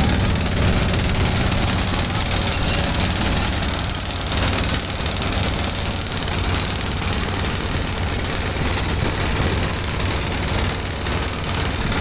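Engine of a wooden passenger motorboat running steadily, a low even drone with no change in speed.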